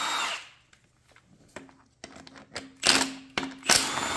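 Cordless power driver spinning out bolts on an engine block's accessory bracket. It runs briefly at the start, then gives light clicks and a low hum, then runs again a little before the end.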